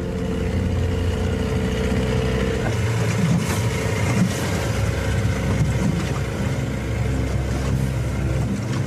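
Motorboat engine running steadily, a continuous low drone.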